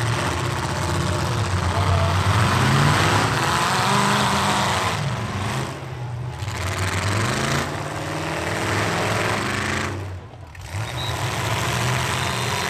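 Demolition derby trucks' engines revving up and down, the pitch rising and falling repeatedly as they push and manoeuvre.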